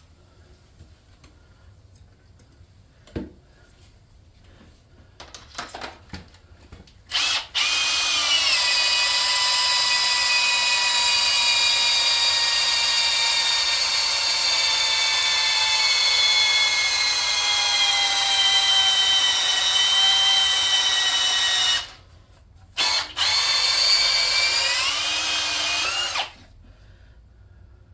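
Electric drill cutting a stripped head bolt hole in a Chevy LS aluminium engine block for a Time-sert insert. After a few light knocks, it runs for about fifteen seconds, its pitch slowly sinking under load. It then stops, gives a short burst and runs again for a few more seconds.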